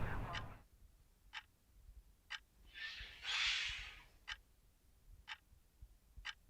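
Faint, steady ticking, about one tick a second, with a soft rushing hiss lasting about a second just past the middle.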